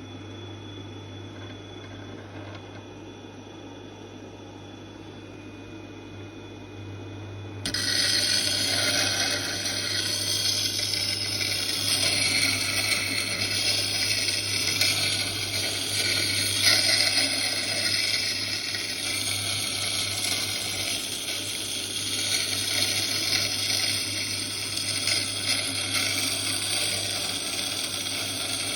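A small power grinder hums steadily; about eight seconds in, a thin tube is put to it and a loud, rough grinding noise starts and continues, rising and falling a little as the tube is worked.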